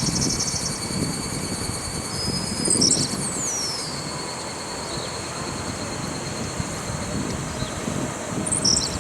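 Steady low outdoor rumble with a thin, steady high insect drone above it, and a few short bird chirps and a falling whistle about three seconds in.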